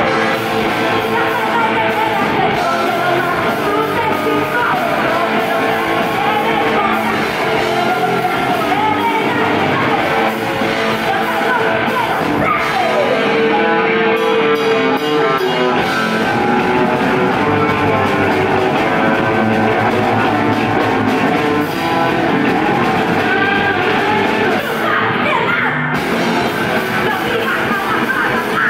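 Rock band playing live: electric guitar, electric bass and drums, with a woman singing into a microphone.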